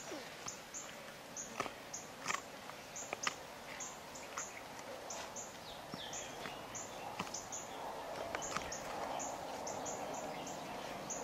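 A creature chirping in short, high notes about twice a second, steadily. Faint clicks and rustles come from hands and a knife working along a goat carcass's spine to free the tenderloin.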